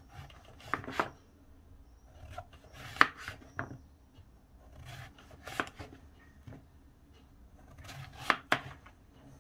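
Knife slicing a peeled zucchini into rounds on a plastic cutting board: soft cutting through the flesh, each cut ending in a sharp tap of the blade on the board, a tap every second or two.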